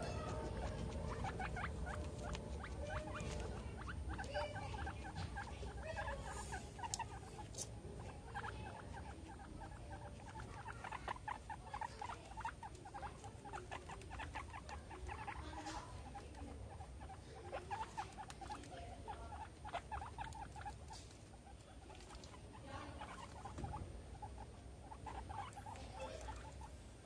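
Guinea pigs moving about close to the microphone: a fast, uneven run of small clicks and rustles that thins out toward the end.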